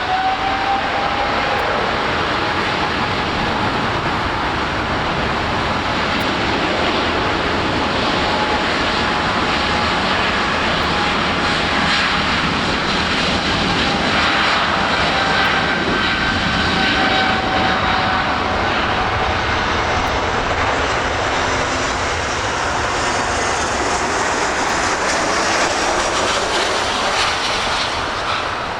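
Jet airliner passing at LAX, a long spell of loud engine noise with a whine that drifts slowly lower, easing off near the end.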